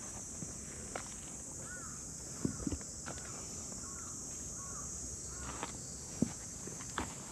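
A string of about six short rising-and-falling chirping calls from an animal, from about one and a half to six seconds in, over a steady high hiss, with a few soft thumps like footsteps.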